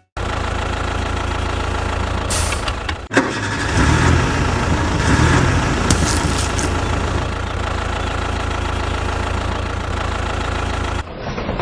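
A small engine or motor running steadily, with a brief break about three seconds in, then stopping near the end.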